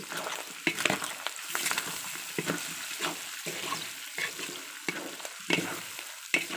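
Pork pieces sizzling in hot oil in a large metal wok, stirred with a metal spatula that scrapes and knocks against the pan in irregular strokes over the steady sizzle.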